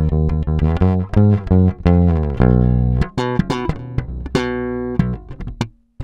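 Fender Deluxe Active Precision Bass Special electric bass played fingerstyle: a fast line of plucked notes, low and full at first, then moving to higher, brighter notes and ending on a held note that is stopped just before the end.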